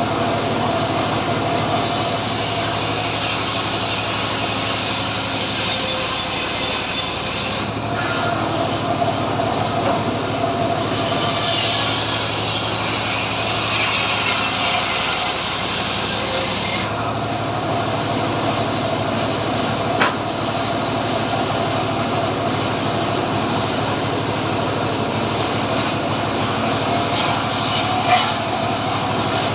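Homemade sawmill (gergaji srekel) running steadily on its engine, its saw blade twice ripping lengthwise through a teak log, each pass a harsh hissing cut lasting about five seconds. Two short knocks come in the second half.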